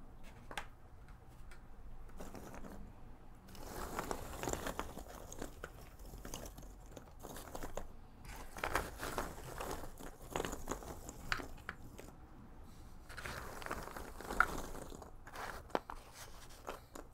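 Loose cardboard jigsaw puzzle pieces being rummaged through by hand in a cardboard box, a dry rustling rattle that comes in about three spells. Small clicks in between are single pieces being picked up and set down.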